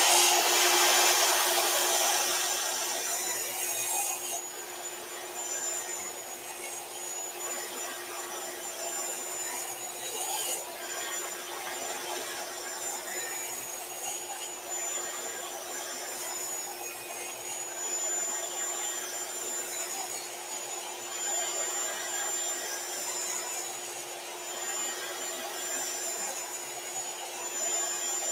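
Sliding miter saw running steadily with a high motor whine while it makes repeated shallow passes through a board to cut a dado with many side-by-side kerfs. It is louder for the first few seconds, then settles into a steady drone with small swells.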